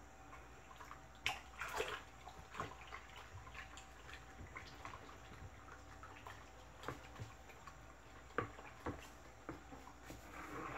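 A wooden stick stirring a liquid homemade aluminium-polish mixture in a plastic bucket: faint sloshing with irregular knocks of the stick against the bucket.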